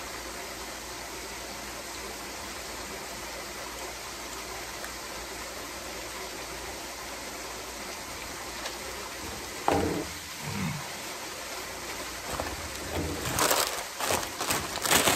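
Steady rush of water from a backyard pool's rock waterfall. A brief vocal sound comes about ten seconds in, and near the end a paper food wrapper is crinkled and crumpled in the hands with sharp crackles.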